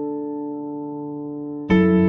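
Instrumental background music: a sustained keyboard chord fading, with a new, louder chord struck near the end.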